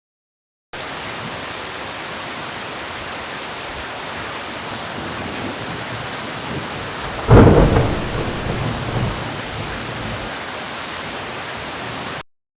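Steady hiss of heavy rain during a thunderstorm, broken about seven seconds in by a sudden loud thunderclap that rumbles on and fades over about two seconds.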